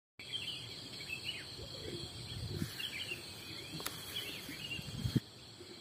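Evening outdoor ambience: insects keep up a steady high hum while birds chirp now and then, over irregular low thumps and rumble. A single sharp click comes about four seconds in.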